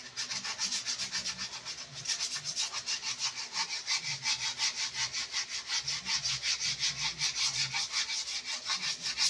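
Sandpaper rubbed by hand back and forth over the friction lining of a pickup's parking-brake shoes, in quick even strokes of about five a second, scuffing and cleaning up the shoes.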